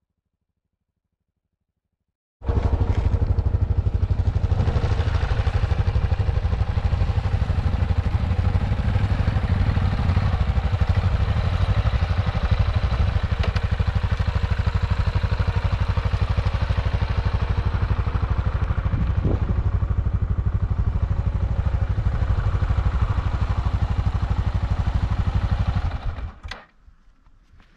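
Yamaha XT660Z Ténéré's single-cylinder four-stroke engine running steadily under way. It starts suddenly about two and a half seconds in and cuts off near the end.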